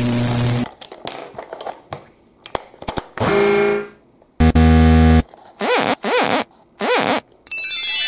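Electronic sound effects from a battery-powered plastic toy locomotive's speaker: a few light plastic clicks, then a short pitched tone, a louder buzzy horn-like tone about halfway, and two quick wobbling up-and-down tones. A tinny electronic tune starts near the end.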